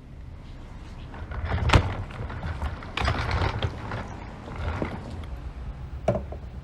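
A shop vacuum being moved about: irregular clunks and scraping, with a sharp knock a little under two seconds in and a longer scrape about three seconds in.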